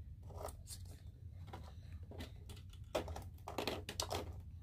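Small plastic toy figures being set down and knocked together on the plastic shelf of a toy dollhouse tower: a scattering of light clicks and taps, busier in the second half.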